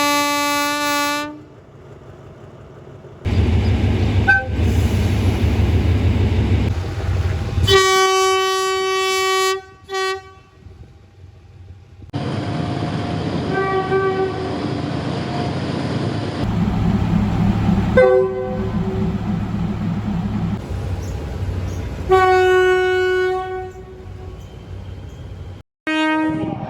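Thai diesel locomotive air horns in a string of separate clips: several horn blasts, some brief toots and some held for a second or two, with the low rumble of the trains between them. The background changes abruptly several times.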